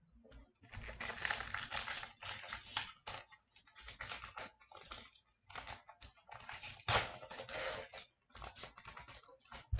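Foil wrapper of an O-Pee-Chee Platinum hockey card pack crinkling and tearing as it is opened by hand, in irregular rustling bursts.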